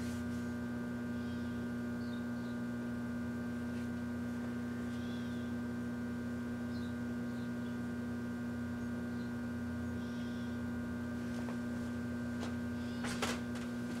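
Large Kenmore microwave oven running: a steady electrical hum with a strong low drone and several fainter steady higher tones. A few sharp clicks come near the end.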